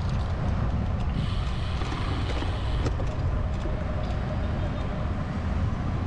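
Wind buffeting the microphone of a camera on a moving road bike, a steady rough rumble, mixed with road traffic; a higher hiss joins in about a second in and lasts about two seconds.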